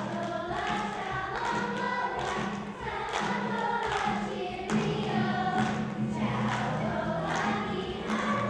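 A large group of children singing a song together in chorus, over a steady instrumental accompaniment.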